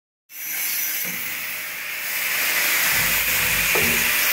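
Angle grinder with a cutting disc cutting through the steel top of a hot-water tank: a steady hissing grind that starts abruptly just after the beginning.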